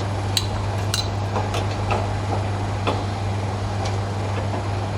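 A few sharp metallic clicks and taps, irregularly spaced, from tools working refrigeration pipe fittings, over a steady low machine hum.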